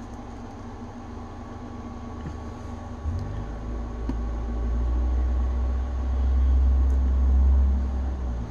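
A deep, low rumble that comes in about three seconds in, swells, and eases off near the end, over a steady low hum.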